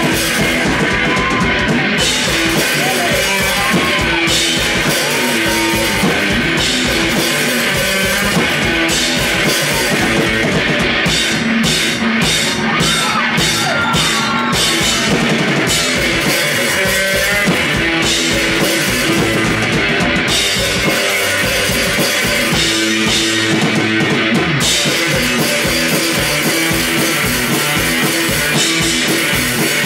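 Live rock music from an electric guitar and a drum kit, played loud with a steady driving beat.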